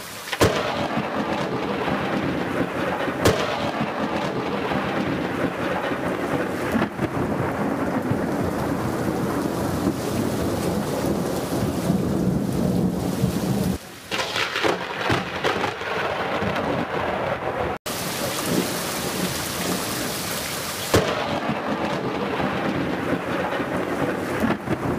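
Thunderstorm: steady heavy rain with rumbling thunder, and sharp thunder cracks just after the start, about three seconds in and again near the end. The sound dips briefly around the middle and cuts out for an instant a few seconds later.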